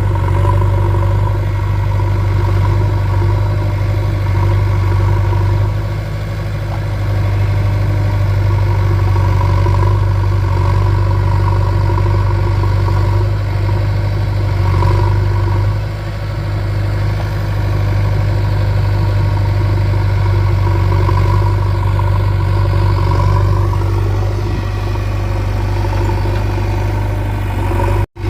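JCB backhoe loader's diesel engine running steadily, with brief dips in level about six and sixteen seconds in.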